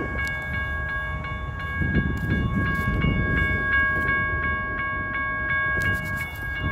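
Railroad crossing bell ringing continuously at about four strikes a second, with a low rumble a couple of seconds in. The crossing is activated with no train present because a gate has jammed on the overhead lights.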